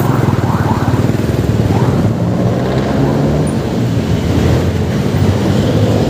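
Motorcycle engine running steadily as it is ridden through city traffic, with a few short rises in pitch in the first second and a half as it picks up speed.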